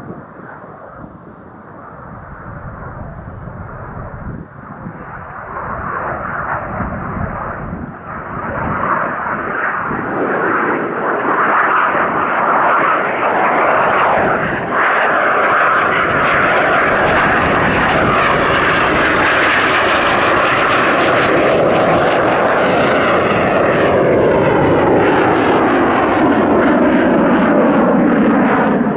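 Aermacchi MB-339 jet trainer's Rolls-Royce Viper turbojet, growing steadily louder as the jet approaches, then staying loud as it passes close overhead, its whine falling in pitch over the last several seconds.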